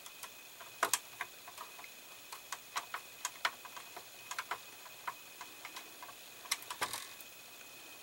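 Irregular small clicks and ticks from a hand screwdriver turning small screws into a scale model's plastic interior parts, with a few louder clicks about a second in and again near the end.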